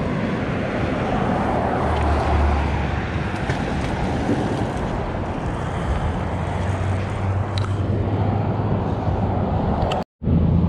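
Steady low engine rumble mixed with wind noise on the microphone, broken by a brief dropout near the end.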